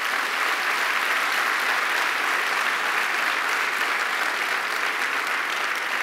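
A large seated audience applauding steadily: dense clapping that continues without a break.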